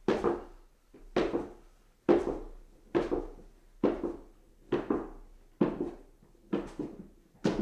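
Footsteps climbing stairs at a steady pace, a little faster than one step a second. Each step lands as a thunk followed closely by a lighter second strike.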